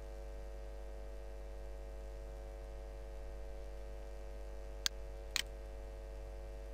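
Steady electrical hum, with two sharp computer mouse clicks about half a second apart near the end.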